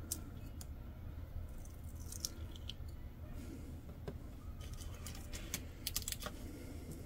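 Faint clicks and scratches of a weeding hook picking cut pieces out of a vinyl stencil sheet and off its backing, a few at a time, over a steady low hum.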